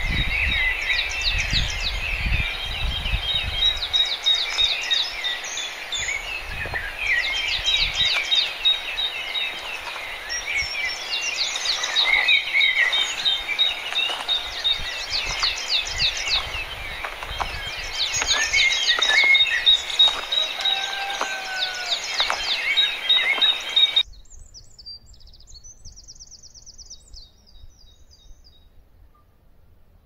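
A busy chorus of many small birds chirping and trilling together, with low rumbling in the first few seconds. About three-quarters of the way through it cuts off abruptly to a much quieter background with only a few faint, distant chirps.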